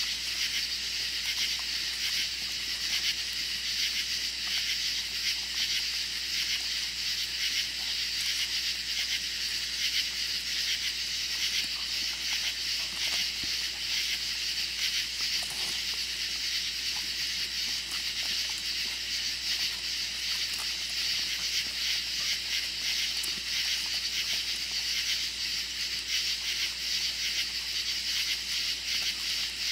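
Steady, high-pitched chorus of night insects, an unbroken shrill hum.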